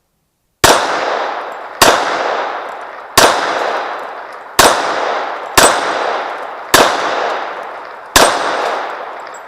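Seven handgun shots fired at steel targets, spaced about a second to a second and a half apart. Each sharp report is followed by a long ringing tail that fades out before the next shot.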